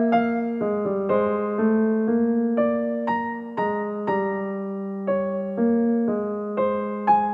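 Background music: a slow, gentle piano or electric-piano melody, notes struck about twice a second and left to ring.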